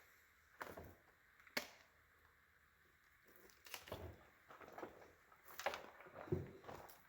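Faint, scattered light clicks and taps from handling small objects, about seven spread unevenly over several seconds.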